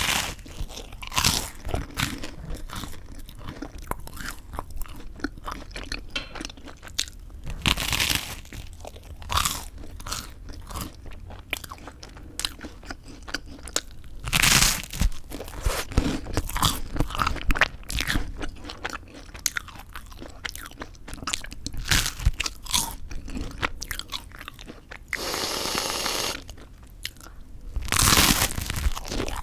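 Crisp toasted white bread bitten and chewed close to the microphone, with repeated sharp crunches and a few louder bites. Near the end there is a steady hiss lasting about a second and a half.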